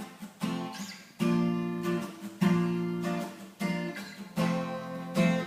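Acoustic guitar strumming chords in a slow song intro, about six strums, each struck and left to ring out for around a second before the next.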